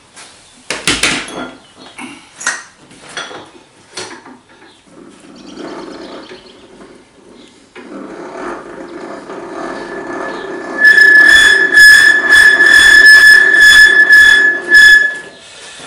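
Milling machine axis being moved up and down along its ways: knocks and clicks at first, then a steady hum. About two-thirds in comes a loud, steady high squeal with a rhythmic scrape, the sign of dry ways, which are oiled straight afterwards.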